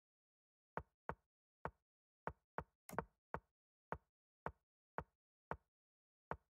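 Chess.com's move sound effect: a short wooden click for each move played, about a dozen in quick, uneven succession. About three seconds in comes a louder, longer double click, the castling sound.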